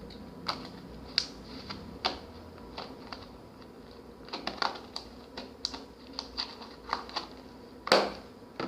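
Glitter slime being squeezed and pressed by hand, giving off irregular sharp clicks, a few a second, with the loudest near the end.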